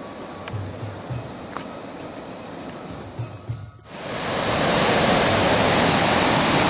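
Rushing mountain stream or waterfall water, steady and loud, starting abruptly about four seconds in. Before it there is a quieter outdoor hiss with a few soft low thuds.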